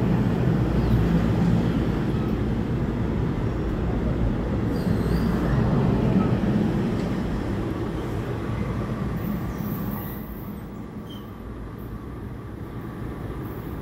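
NJ Transit Bombardier bilevel commuter train pulling out of the station, its cars rolling past with a steady rumble of wheels on rail. The rumble fades noticeably about ten seconds in as the train draws away.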